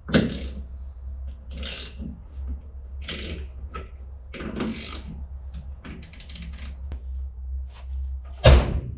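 Scattered clicks, knocks and rustles of hands working a 1993 Fox-body Mustang's door during door alignment, with a sharp, loud knock near the end, over a steady low hum.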